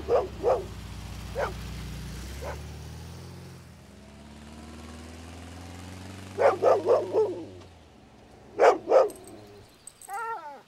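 Dog barking on a road: a few single barks over the first couple of seconds, then a quick run of barks about six seconds in and two loud barks near the end. Under the first part a car engine runs low and steady, fading out about eight seconds in.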